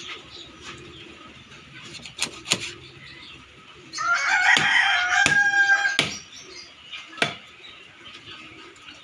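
A large knife chopping a barracuda into steaks, striking the wooden block several times. About four seconds in, a rooster crows for about two seconds, louder than the chopping.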